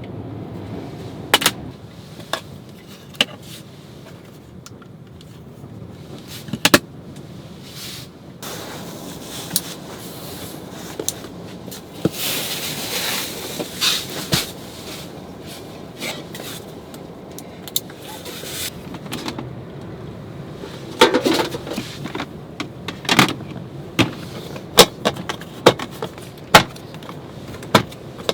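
Handling noises inside a car: a string of sharp clicks, knocks and clatter, with a stretch of rustling about halfway through and a busier run of clicks near the end, as curtains are fitted and gear is set out.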